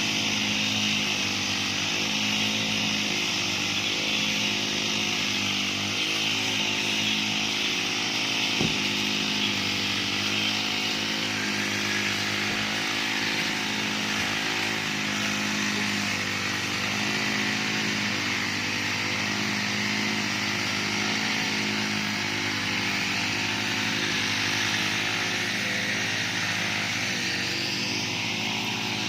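Small petrol engine of a grass-cutting machine running steadily at a constant speed while it cuts grass, with one sharp tick about nine seconds in.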